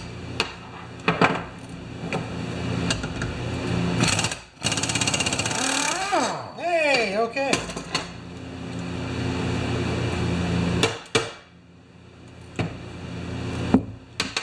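Pneumatic impact wrench hammering on a chainsaw clutch nut in one rapid rattling burst of about a second and a half, a little after a few sharp knocks of metal on metal. A steady mechanical hum runs underneath.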